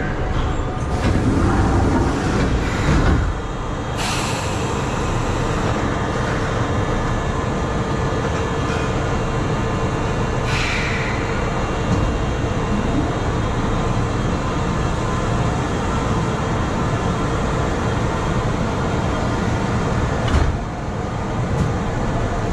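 Steady hum inside the cab of a subway train standing at an underground platform, louder for the first few seconds. A few sharp knocks and a short hiss are heard as crew move about the cab.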